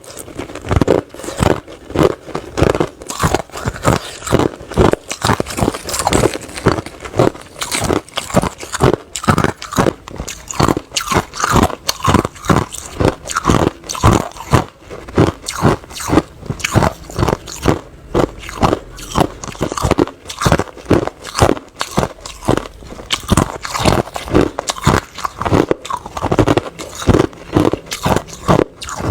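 Hard ice being bitten and chewed close to the microphone: a rapid, continuous series of sharp crunches, a few per second.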